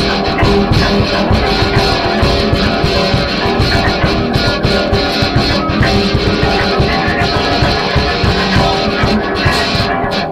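Rock band recording: electric guitars and bass guitar playing loud and dense, with a brief drop-out about ten seconds in.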